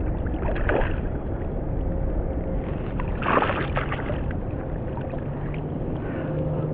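Steady low rumble of wind and water around a kayak while a hooked trout is played in, with two short louder sounds, about a second in and about halfway through.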